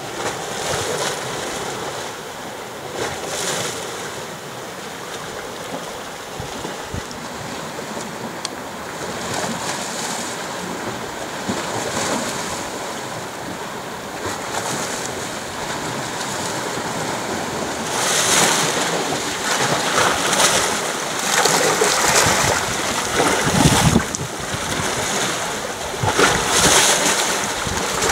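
Small waves of a calm sea washing and splashing against a rocky shore in irregular surges every second or two. The surges grow louder over the second half.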